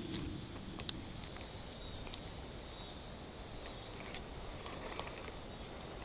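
Faint outdoor ambience with insects calling steadily, and a few small clicks, the clearest about a second in.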